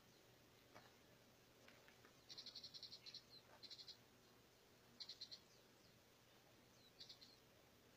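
An animal call, faint and high-pitched: four or five short trills of rapid pulses, about ten a second, each lasting under a second, starting about two seconds in. Between them it is near silence.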